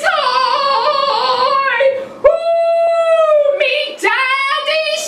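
A woman singing an operatic aria with a wavering voice; after a short break she holds one long, steady note for about a second and a half, then sings on.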